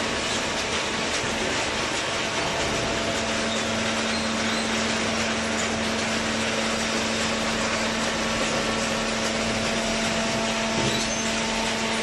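Steady machinery noise in a workshop, with a constant low hum that comes in a couple of seconds in.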